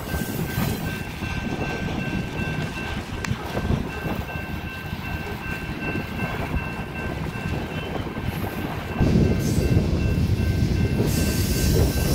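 Freight train of covered hopper cars rolling through a grade crossing, its wheels rumbling and clacking over the rails, while the crossing bell rings steadily above it. The rumble gets louder about nine seconds in.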